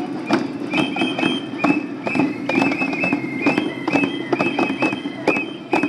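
Many people beating wooden spoons on white plastic buckets, a crowd of hollow knocks out of step with one another. Short high ringing tones sound over the knocking again and again.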